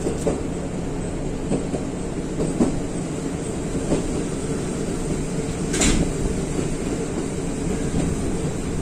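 Diesel train heard from inside the passenger car as it slows into a station: a steady running rumble with a few wheel clicks over rail joints, and one sharp clank about six seconds in.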